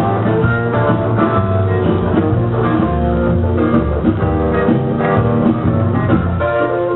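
Background music: an instrumental passage led by guitar over a steady bass line.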